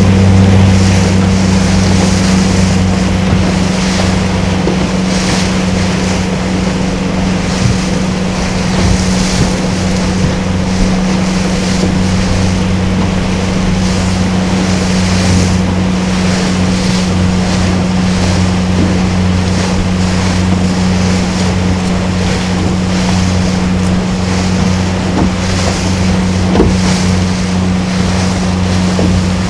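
A motorboat's engine running steadily underway, a constant low hum. Under it, water rushes along the hull and wind buffets the microphone in gusts.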